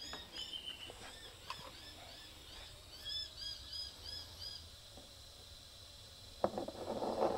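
Small birds chirping in the background: quick, high, arched notes repeated over and over. Near the end comes a brief scraping rustle with a few clicks.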